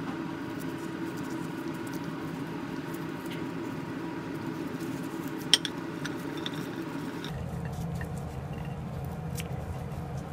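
Rusty steel bolts handled in a rubber-gloved hand over a ceramic plate of penetrating oil: faint clicks and one sharp clink about five and a half seconds in as a bolt meets the plate. A steady background hum runs under it and drops lower about seven seconds in.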